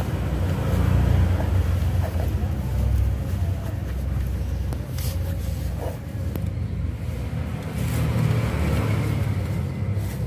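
Cloth rag rubbing and scrubbing inside a greasy inner CV joint housing close to the microphone: a continuous low, uneven rumbling rub, with a few sharp clicks about five and eight seconds in.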